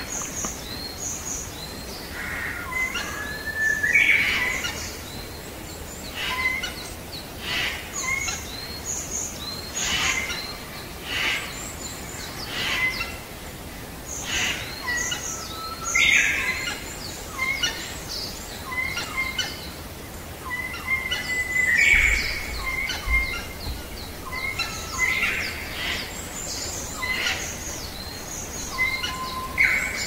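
Songbirds singing and calling: varied short phrases and chirps repeating every second or two.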